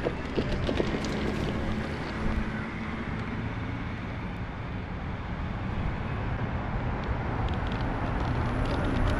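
Electric skateboard rolling over asphalt: steady wheel rumble and wind on the microphone, with a faint motor whine that fades after about three seconds. A few sharp knocks in the first second as the wheels hit cracks in the pavement.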